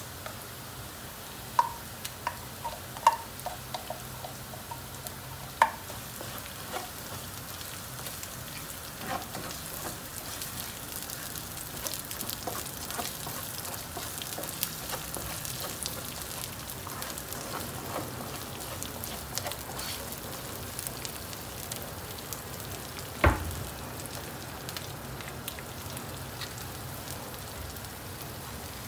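Food frying in hot oil in a pan: a steady crackling sizzle, with a few sharp clicks in the first six seconds and one loud knock about 23 seconds in.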